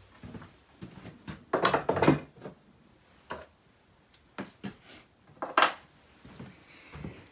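Small metal tools and parts clinking and clattering on a workbench as they are handled, with a cluster of clatters about one and a half seconds in and a brief metallic ring later on.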